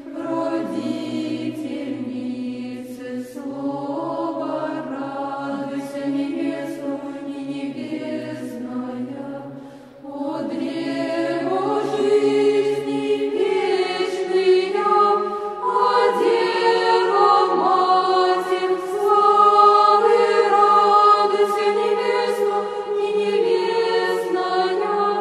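Choir singing Orthodox church chant, the melody moving over a low note held underneath; the singing dips briefly about ten seconds in and comes back louder and fuller.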